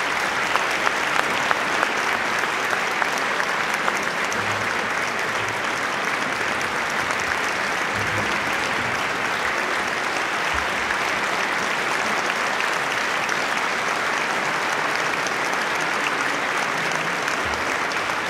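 Large audience applauding steadily, with a few sharper, closer claps standing out in the first few seconds.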